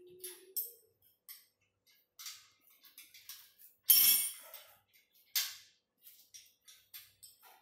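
Metal hardware clinking and tapping against a steel treadmill frame as bolts and washers are fitted: irregular light clicks, with two louder clanks about four and five and a half seconds in.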